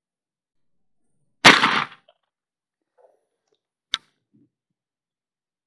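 A single shot from a Husan magazine-fed 12-gauge shotgun firing a hand-loaded steel-ball round. The blast rings out and dies away over about half a second. A short sharp click follows about two and a half seconds later.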